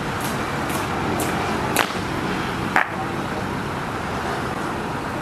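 Sharp metal-heeled boot clicks of a marching honor guard on stone, about two a second, ending in two louder stamps around two and three seconds in, over a steady hum of road traffic.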